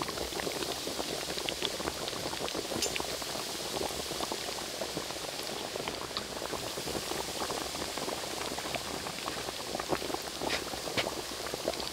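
Flour-coated chicken drumsticks deep-frying in hot oil in a wok: a steady sizzle thick with small crackles and pops.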